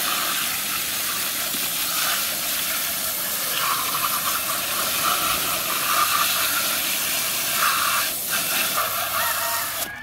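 Garden hose spray nozzle jetting water onto a plastic toy truck and into a plastic basket: a steady hiss that cuts off just before the end.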